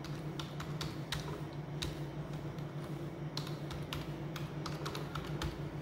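Typing on a computer keyboard: a run of irregular key clicks over a low, steady hum.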